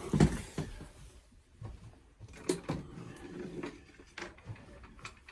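Scattered light clicks and knocks of hands handling small tools and a metal padlock on a work surface, with a thump just after the start.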